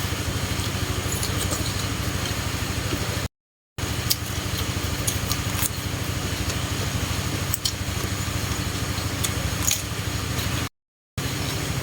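A small engine or motor running steadily with a fast, even pulse, with scattered sharp clicks and scrapes over it; the sound cuts off abruptly twice.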